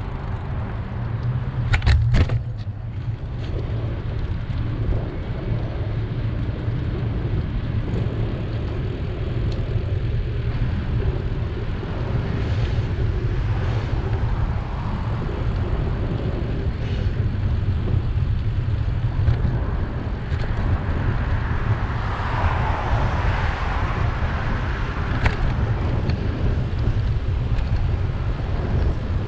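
Steady low wind rumble on the microphone of a moving bicycle, with road traffic passing alongside; one vehicle swells past about three quarters of the way through. A brief cluster of sharp clicks sounds about two seconds in.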